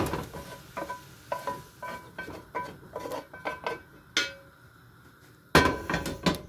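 A metal utensil clinking and scraping against a metal pan: a quick run of light clinks, about four a second, each with a short ring. After a pause come two heavy knocks near the end.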